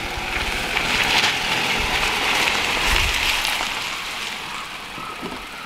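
A sedan rolling slowly into a paved driveway scattered with dry leaves: a hiss of tyre noise that swells about a second in and fades toward the end.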